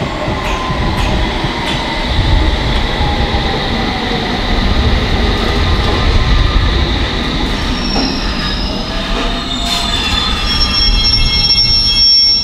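London Underground S7 Stock District line train running into the station and braking to a stop. A falling electric whine comes from its traction motors as it slows, over a rumble of wheels on rail. In the last couple of seconds there is a high, steady squeal as it halts.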